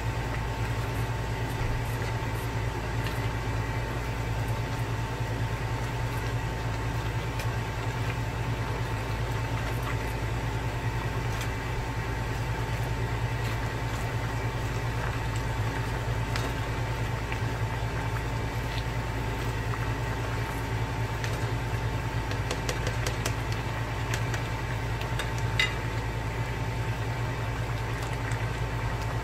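Steady mechanical hum with a constant high whine over it, and a few faint light clicks about three quarters of the way through.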